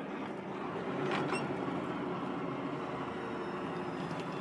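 Semi-truck engine running steadily with tyre and road noise heard from inside the cab, as the truck comes up on a red light.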